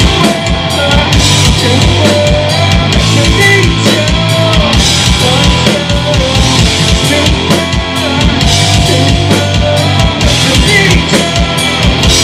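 Live rock band playing loudly, with a drum kit driving a quick, steady kick-drum beat under guitar and bass.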